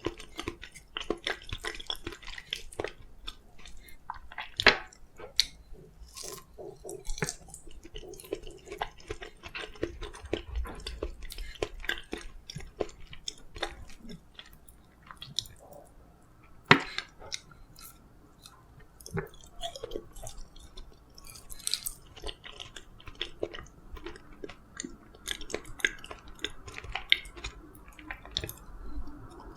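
Close-miked chewing of steamed kabocha (sweet pumpkin): soft, wet mouth sounds with many small clicks, and a couple of sharper clicks standing out.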